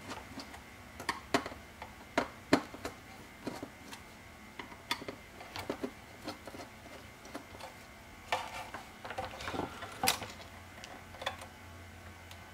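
Scattered sharp clicks and small taps of terminal screws being loosened and solid copper wire being worked into a screw terminal strip in a metal enclosure. A busier stretch of small scraping noises comes about eight seconds in, and a louder click near ten seconds.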